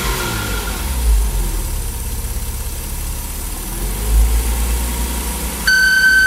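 Porsche Boxster 986 flat-six engine idling and briefly revved, rising and falling; near the end a steady high-pitched whistle starts suddenly, the noise of a blocked air-oil separator.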